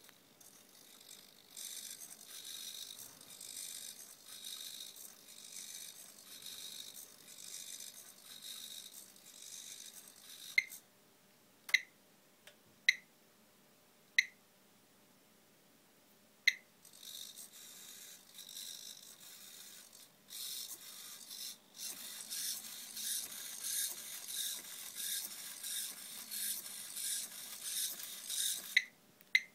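Small motors of a homemade hexapod robot whirring as its metal legs step, the whir pulsing in time with the gait. It stops for several seconds in the middle, where a few sharp clicks sound, then starts again and runs louder toward the end.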